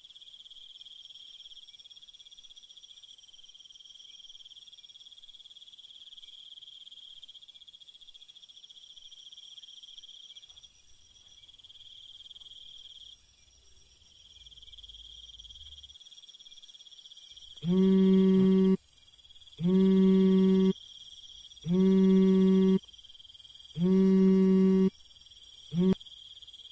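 Crickets chirping steadily. About two-thirds of the way in, a mobile phone sounds an incoming-call alert: four even buzzing tones about a second long and a second apart, with a fifth cut short as the call is taken.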